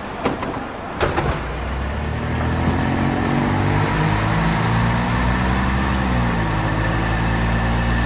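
Mercedes-Benz tour coach's engine running as the coach pulls away, a steady low hum that grows slightly louder and shifts a little in pitch near the end. A couple of short knocks come in the first second.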